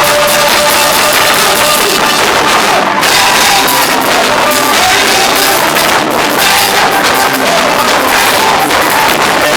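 Loud praise band music with a drum kit playing steadily.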